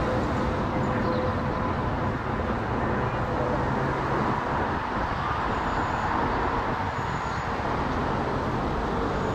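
Boeing 777-300ER's twin GE90 turbofans at takeoff thrust as the airliner climbs out after rotation: a steady, broad jet rumble with a faint hum in it.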